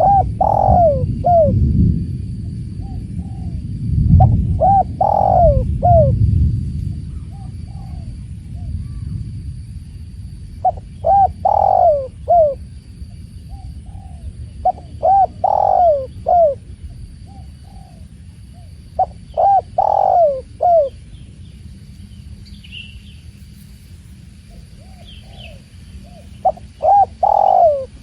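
Spotted dove (tekukur) cooing: a phrase of several short coos repeated about every four seconds, six phrases in all. A low rumbling noise underneath is loudest in the first six seconds and then fades, and a few faint higher chirps from another bird come near the end.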